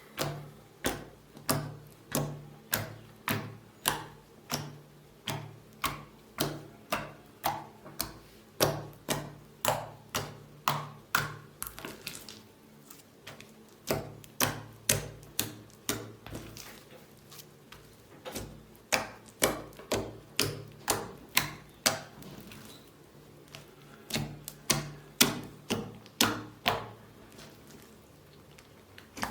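Bead-filled slime being pressed and poked by hand, making a steady run of sharp clicking pops about two a second, with a couple of quieter pauses.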